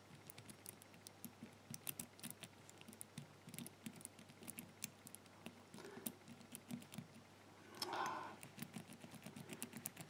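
Faint, irregular small clicks of the brass number wheels of a Lince four-wheel combination padlock being turned a step at a time while the shackle is held under tension, feeling for the gates. A short, louder, muffled noise comes about eight seconds in.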